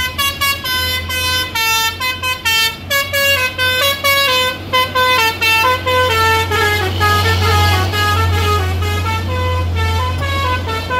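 A dump truck's basuri (telolet) musical air horn plays a fast tune of stepped notes over the steady rumble of the truck's diesel engine. The engine grows louder about midway as the truck passes close.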